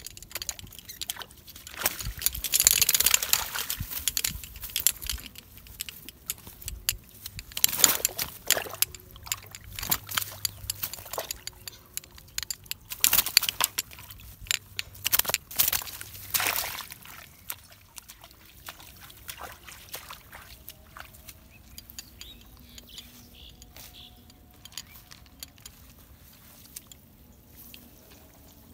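Water splashing and sloshing as a hooked fish thrashes and is hauled out of a weedy pond on a hand line, in loud, irregular bursts through the first half. The second half is quieter, with only faint handling sounds.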